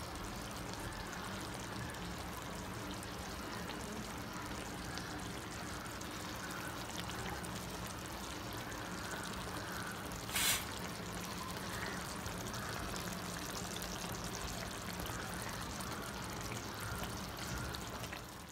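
Bombay duck masala simmering in a pan on the stove: a steady liquid hiss, with one sharp click about ten and a half seconds in.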